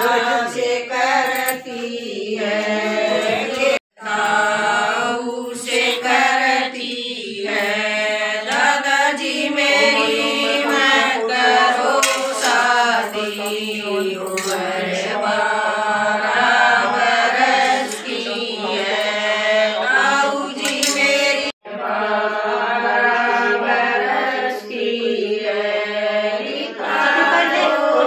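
A group of women singing a traditional wedding folk song together, one continuous strain of chorus voices. The sound cuts out abruptly for a moment twice, about four seconds in and again around twenty-one seconds.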